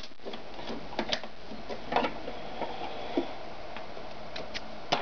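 Scattered light clicks and knocks from handling at a stopped sewing machine, as the stitched fabric is pulled out from under the presser foot and put back in place. The clicks come at uneven intervals, with no steady stitching rhythm.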